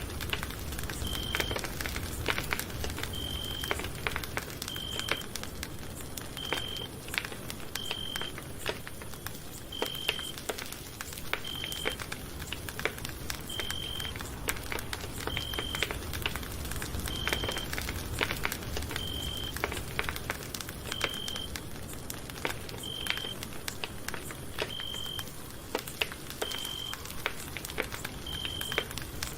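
Campfire crackling and popping, with irregular sharp snaps over a low rumble of burning wood. A short high-pitched beep or chirp repeats steadily about every two seconds throughout.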